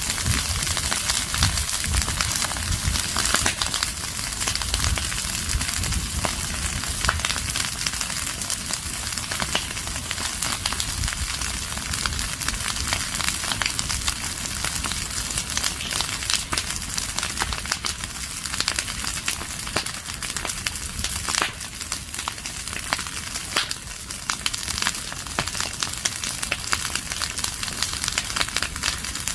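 Leaves and branches burning in an open fire, crackling with a dense stream of small pops over a steady hiss, with a low rumble underneath.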